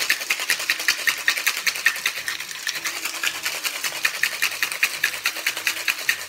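Metal cocktail shaker being shaken hard, the contents rattling against the metal in a fast, even rhythm of several strokes a second.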